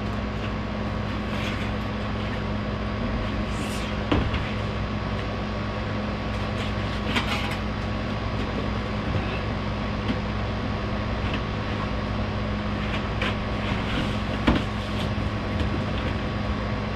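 Steady machine hum, with a few sharp knocks and clunks as plastic bins and a hand truck are handled, the loudest near the end.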